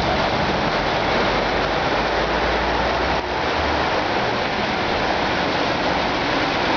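Steady rain falling, a loud even hiss with no pauses.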